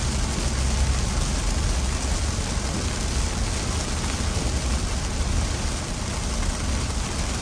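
Heavy rain pelting a car's windshield and roof, heard from inside the moving car, over a steady low rumble of the car on the wet road.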